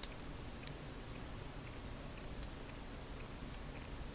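Plastic model-kit pieces clicking as the two halves of a foot are pressed and snapped together: four short, sharp clicks at uneven intervals.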